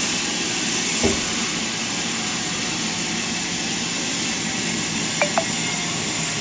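Sawmill machinery running steadily with a low hum and hiss, a single knock about a second in and two quick clicks near the end.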